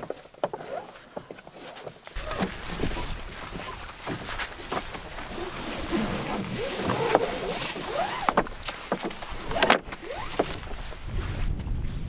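Rigging a canoe sail by hand: rope rasping and squeaking as it is drawn tight around wooden spars, with scattered knocks and the rustle of sail cloth.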